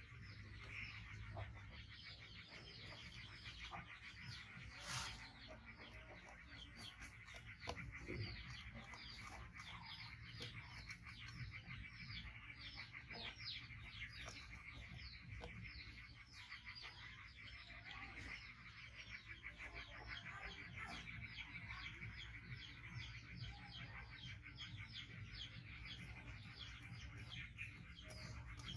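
Small birds chirping continually, many short high chirps a second, faint, over a steady high-pitched hum.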